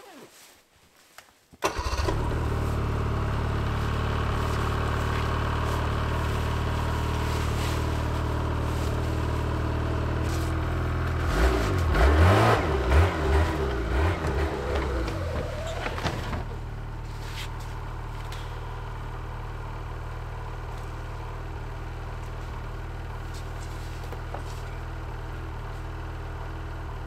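Snowmobile engine starting suddenly about two seconds in and idling steadily. Around the middle it revs unevenly for several seconds as the machine pulls the loaded sled and gets stuck after hitting a stone in deep snow. It then settles to a quieter idle.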